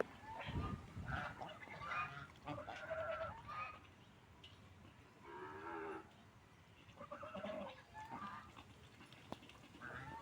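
Ducks quacking in bursts of short nasal calls: a run of calls in the first four seconds, a longer call around the middle, and more calls later on, with a low bump under the first calls.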